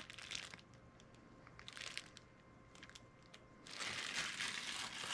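Clear plastic bag crinkling and crackling around a die-cast toy truck cab as it is handled. A quieter stretch with a few small clicks comes in the middle, and the crinkling picks up again near the end.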